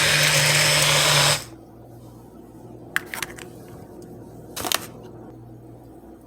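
BlendJet 2 portable blender's motor running with a steady hum and whir, really struggling on mango chunks, then cutting off abruptly about a second and a half in. A couple of faint clicks follow.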